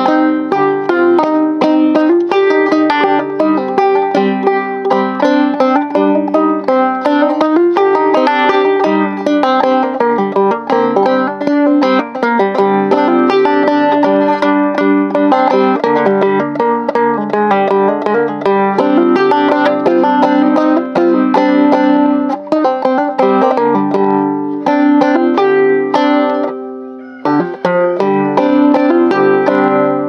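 Banjo in sawmill tuning picked steadily in a quick run of plucked notes, playing a melody in the Hijaz mode. The playing thins out briefly near the end before picking up again.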